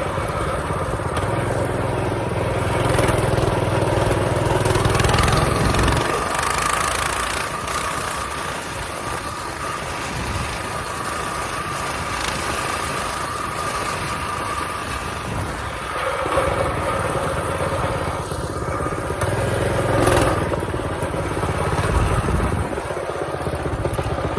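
Mini bike's small engine running while it is ridden, its note shifting with the throttle, notably changing about six seconds in and again around sixteen seconds.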